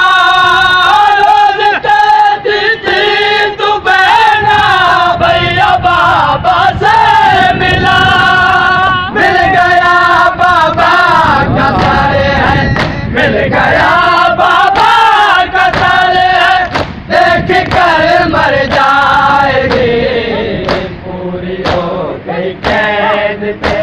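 A crowd of male mourners chanting an Urdu nauha in unison, loud and close. Sharp slaps of hand-on-chest matam beat in time, heard most clearly about once a second near the end as the singing thins.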